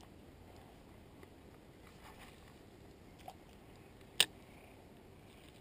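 Quiet outdoor background with one sharp, short click about four seconds in, and a fainter tap a second before it.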